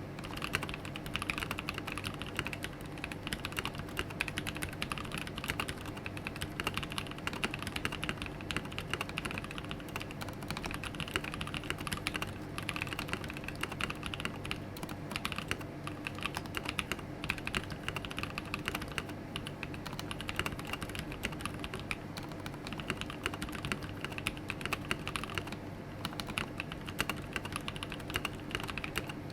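Continuous fast typing on a 65% aluminium-plated custom mechanical keyboard (The Mark: 65). It has lubed NovelKeys Cream linear switches and PBT keycaps, and sits on a desk mat; keystrokes come in a dense, unbroken stream.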